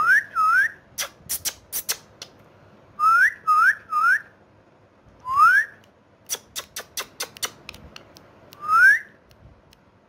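Indian ringneck parakeet giving short whistles that each rise in pitch, about seven of them, with two runs of sharp clicks between them: one about a second in and one a little past the middle.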